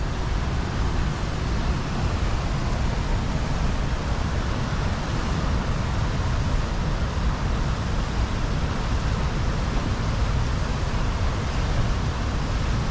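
Waterfall rushing: a loud, steady roar of falling water with no breaks.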